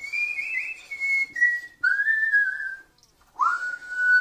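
A man whistling a slow tune with pursed lips: long, clear held notes that bend slightly in pitch, a short break about three seconds in, then a note that swoops upward and holds.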